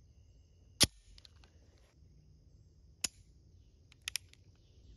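A single pistol shot from a French Model 1935A in 7.65 French Long, a little under a second in. It is followed by a few much fainter short clicks: one about three seconds in and a quick pair about a second later.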